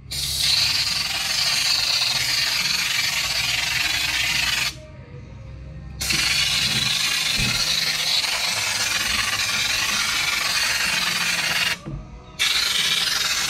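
Air-powered undercoating gun spraying coating onto sheet metal: a loud, steady hiss in three long spells, cut off briefly about five seconds in and again about twelve seconds in.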